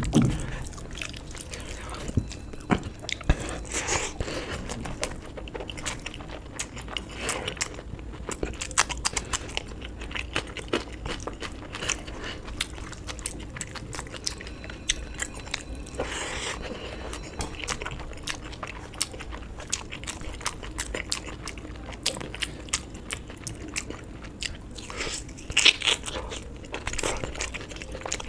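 A person eating close to the microphone: steady chewing with wet mouth clicks and crunching bites. Louder bites come about 4, 16 and 26 seconds in.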